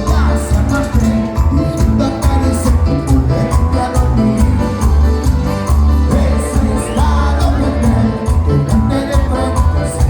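A cuarteto band playing live, with a strong steady bass beat under keyboards and a singing voice.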